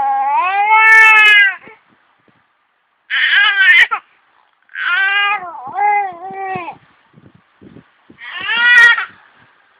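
A series of loud, drawn-out, wavering cries, each bending up and down in pitch. There are about six of them, the first running on from before and lasting nearly two seconds, the rest under a second each.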